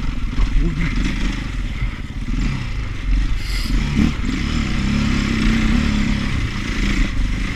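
2008 KTM 530 EXC's single-cylinder four-stroke engine running under load on an off-road ride, its pitch rising and falling as the throttle is opened and closed.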